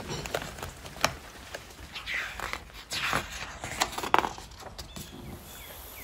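Paper pages of a hardback picture book being turned by hand: soft rustling swishes and a few light clicks.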